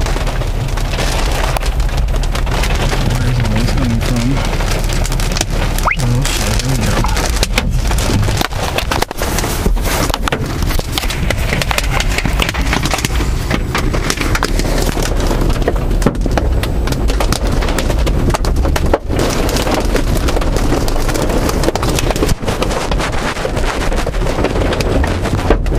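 Golf-ball-size hail and heavy rain pounding on a car's roof and windshield, heard from inside the car as a dense, unbroken clatter of hard hits.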